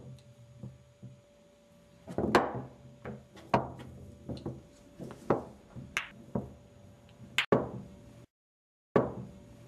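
Pool balls clacking on a pool table: a string of about ten sharp knocks at uneven spacing.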